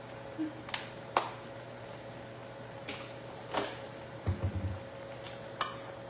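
Scattered light clicks and knocks of small sauce bottles and kitchen utensils being handled, the sharpest about a second in, with a short run of low thuds a little past four seconds, over a steady faint hum.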